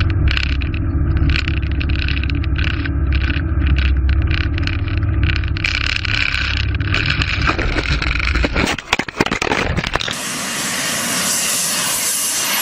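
Cockpit noise of a light single-engine propeller plane: a loud low engine drone with wind noise, then from about six seconds rushing and scraping as it ploughs into trees, breaking into sharp clatter and dropouts. After a cut near ten seconds, a steady rushing hiss as a model airliner lands.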